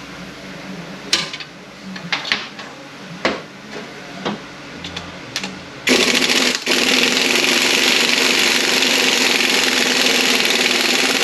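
Tools and metal transmission parts clinking and knocking a few times, then about six seconds in a compressed-air blow gun hisses steadily for about five seconds, with a brief break just after it starts, and cuts off sharply.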